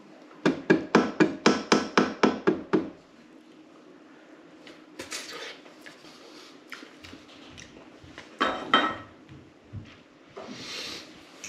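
A spatula knocking against a metal cooking pot, about a dozen quick knocks in just over two seconds, then quieter scraping and stirring in the pot, with one louder scrape later on. The pot holds sticky, foaming honeycomb mixture just after the bicarbonate of soda went in.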